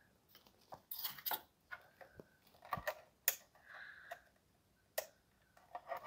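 Plastic and cardboard mouse packaging being handled: scattered light clicks and taps, with a sharper click about three seconds in and a brief rustle just after.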